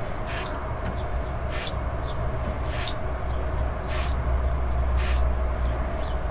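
Aerosol can of embroidery-machine lubricant giving five short hissing sprays, about one a second, one shot onto each needle-bar spring, over a steady low hum.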